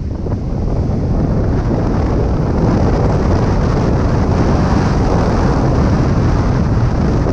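Strong wind rushing over the microphone of a paragliding tandem in flight, a steady loud rumbling rush that grows a little louder about a second in.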